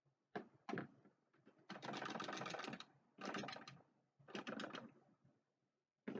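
Rapid mechanical clicking in bursts: two short clicks, then a run of fast ticks lasting about a second, followed by two shorter runs.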